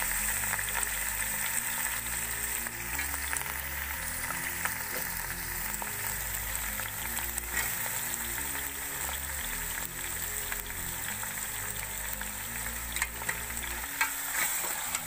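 Raw beef chunks and bones sizzling in hot cooking oil in a metal pot, a steady frying hiss. A steel ladle stirring them adds a few light scrapes and clicks.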